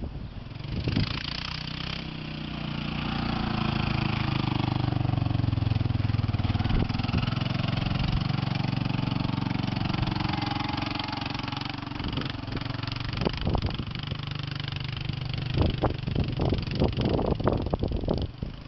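Quad bike (four-wheeled ATV) engine running as it is ridden across grass. It grows louder over the first few seconds, then eases off. In the last few seconds a run of sharp, irregular knocks sits over the engine.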